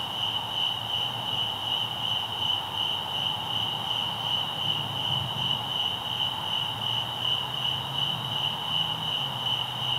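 Night insects, such as crickets or katydids, chirping in a steady chorus: a high trill pulsing evenly.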